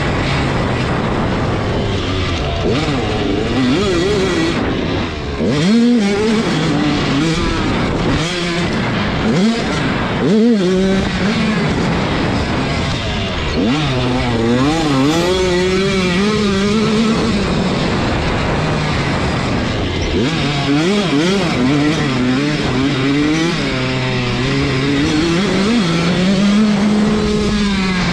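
Dirt bike engine ridden hard around a motocross track, its pitch climbing and falling back over and over as the throttle is opened and closed and the gears change.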